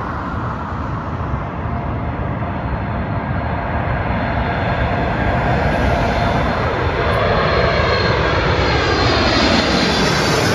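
Boeing 747 on landing approach passing low overhead, its four jet engines growing steadily louder. Near the end, as it goes over, a whistling tone falls in pitch.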